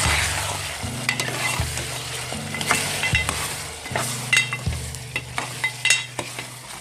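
Keema and yogurt masala sizzling in oil in a pot while freshly added potato pieces are stirred in, a spoon scraping and clicking against the pot many times.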